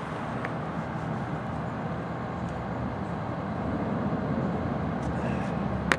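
Steady city street traffic: a low rumble of cars on the road, growing a little louder after the middle, with one sharp click near the end.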